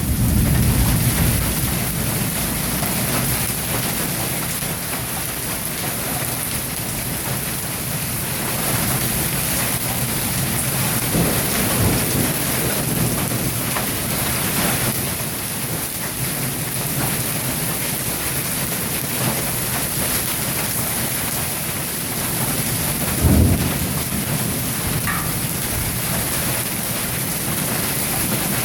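Hail and rain coming down hard, a dense, steady patter of stones striking surfaces. A low rumble sits under it at the start, and a single heavy thump stands out about three-quarters of the way through.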